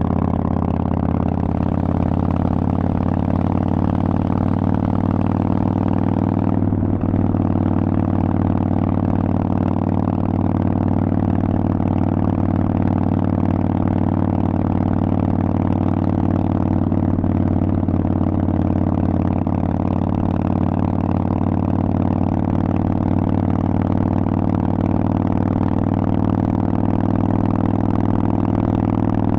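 Harley-Davidson Forty-Eight's 1200 cc V-twin running through loud Vance & Hines aftermarket exhaust pipes, held at a steady engine speed, with a brief break in the sound about seven seconds in.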